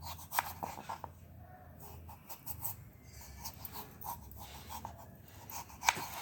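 Knife slicing a peeled raw potato into sticks for French fries: a run of irregular taps and cuts, the sharpest about half a second in and again near the end.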